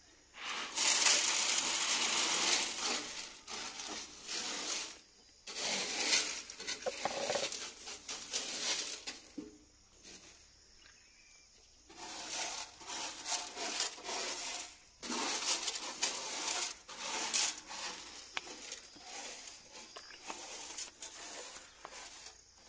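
Maize kernels pouring into a seed drill's sheet-metal hopper and being raked by hand, a rattling, hissing rush of grain in bursts a few seconds long with a pause in the middle.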